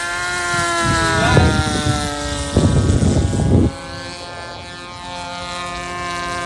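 Engines of several petrol-powered RC model airplanes buzzing overhead as a steady stack of tones, one bending in pitch as a plane passes about a second in. Two bursts of low rumble cover them, the louder from about two and a half to nearly four seconds in.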